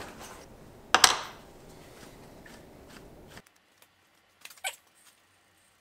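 Objects being handled on a workbench: one sharp knock about a second in, light rustling and handling noise, then two faint taps near the end.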